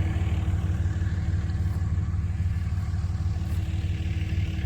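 A vehicle engine running steadily at a low, even speed, with a constant low hum.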